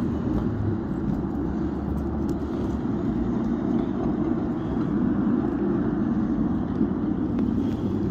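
Miniature ride-on train running along its track, a steady low rumble of the cars and wheels on the rails.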